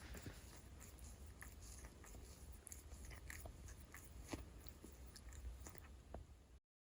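Large domestic cat purring close to the microphone: a faint, steady low rumble with scattered soft clicks. The sound cuts off abruptly near the end.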